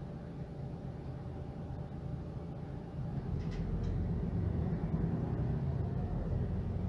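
Mercedes-Benz Citaro G articulated bus's OM457hLA six-cylinder diesel running with a steady low hum. About three seconds in it grows louder as the engine takes on more load.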